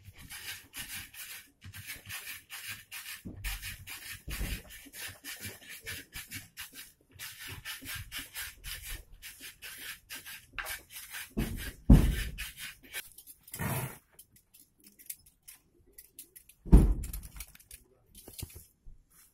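Hands rubbing and working a stuffed fabric mattress and its loose filling, a quick, steady run of scratchy rustling strokes. Later come a few heavy thumps, the loudest sounds, with quieter rustling between them.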